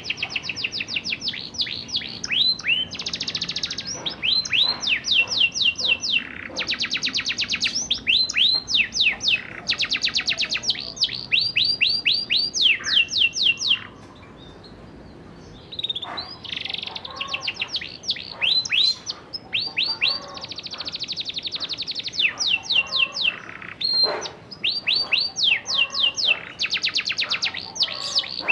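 Domestic canary singing rolled song: phrases of fast trills of repeated high, rising notes, one phrase after another, with a pause of about two seconds midway.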